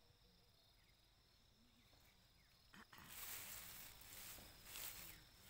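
Near silence, then from about three seconds in the leaves and vines of pea plants rustling as a hand searches through them for pods, after a faint click.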